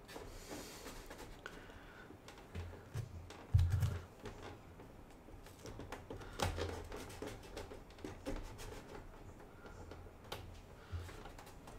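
Small clicks and taps of hands handling and pressing together the clear plastic hull halves of a large scale-model submarine, with a few dull bumps on the table, the loudest about three and a half seconds in.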